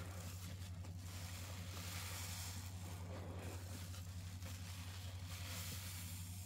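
A sponge soaked with soapy Pinalen pine cleaner being squeezed: a faint, soft, wet squishing that swells twice.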